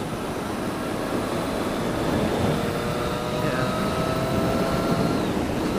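Motorcycle under way: steady wind and road rush, with the engine note climbing gently through the middle as the bike accelerates.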